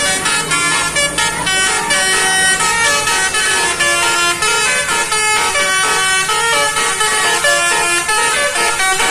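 Basuri V4 telolet horn on a bus playing a fast melody: short, clear notes that step up and down in pitch one after another without a break.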